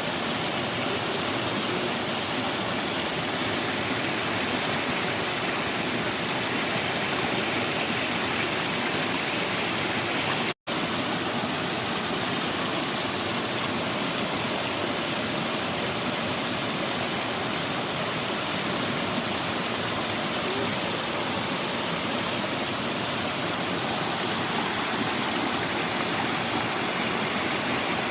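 Steady rush of a mountain stream's flowing water, an even hiss with no let-up; it cuts out for an instant about ten seconds in.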